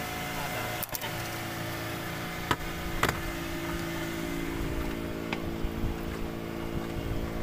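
Small fishing boat's engine running steadily, with a few sharp knocks in the first three seconds.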